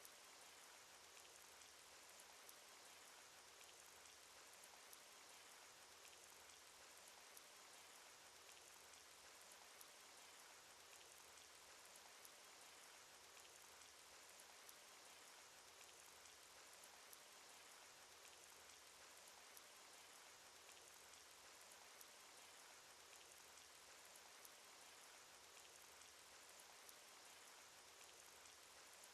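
Cartoon rain sound effect: faint, steady rainfall with many scattered little drop ticks and no let-up.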